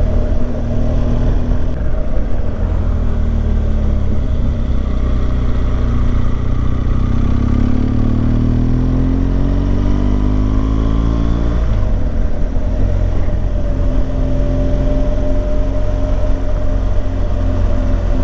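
Motorcycle engine running on the road: its note climbs for several seconds as the bike accelerates, drops suddenly about twelve seconds in, then runs at a steady pitch.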